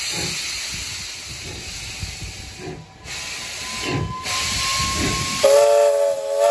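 Steam locomotive No. 218 hissing steam as it moves slowly, with a few low chuffs, then a short blast of its steam whistle, a chord of several tones, in the last second.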